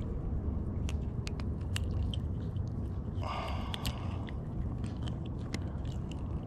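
Scattered sharp clicks and crackles of hands working a fishing hook and line out of a small mangrove snapper's mouth close to the microphone, with a brief rustle about three seconds in, over a steady low rumble.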